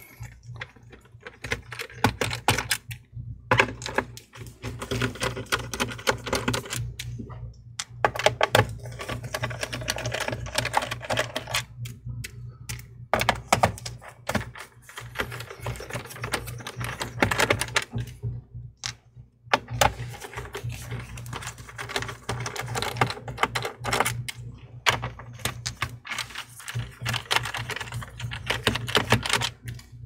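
Small Phillips screwdriver taking out the screws of an Acer Predator Helios 300 laptop's bottom cover: irregular light clicks and taps of the driver, the screws and fingers on the cover. A low steady hum runs underneath.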